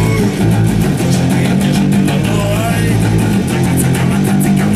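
Electric guitar and bass guitar playing a loud, continuous rock riff together.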